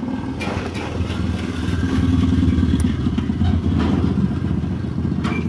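A motorcycle engine running in the background with a fast, even pulsing, getting louder about two seconds in. A light metallic click comes near the end.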